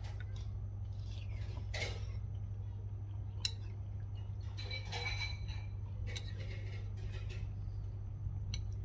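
Cutlery clinking against a bowl now and then while someone eats, a few sharp clinks over a steady low hum.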